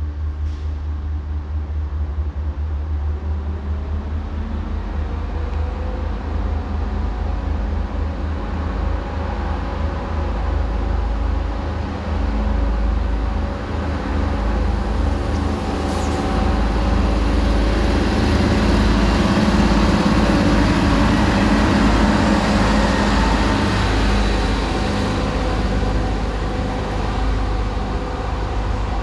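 MAN diesel multiple unit approaching with its engines running, a steady low rumble that grows louder, peaks about two-thirds of the way through, then eases slightly.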